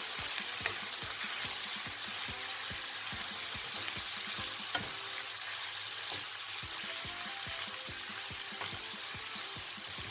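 Mutton intestine with onion and tomato sizzling in hot oil in a pan as it is stirred, the spoon knocking and scraping against the pan many times at an irregular pace.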